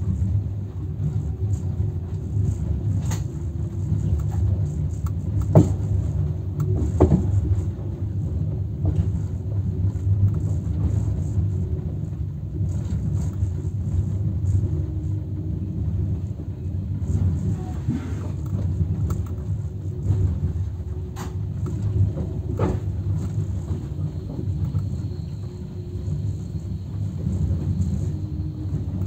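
Passenger train running, a steady low rumble with a few sharp knocks along the way.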